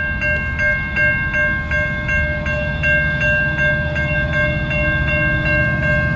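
A railroad bell ringing steadily at about three strokes a second over the low rumble of a train.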